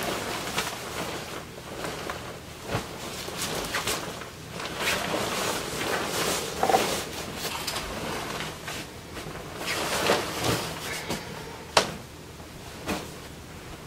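Crinkly shell fabric of a down comforter and pillows rustling as they are shifted and arranged on a bed, with a few sharp knocks.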